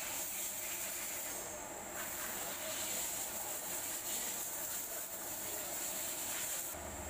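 Steady hiss with faint knocks and rustles as a scooter's water pump housing and coolant hoses are handled; a low hum comes in near the end.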